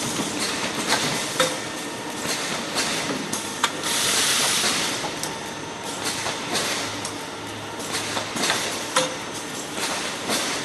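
Automatic kitchen-roll film packing machine running: steady machine noise with irregular sharp clicks and knocks, and a hiss lasting about a second and a half near the middle.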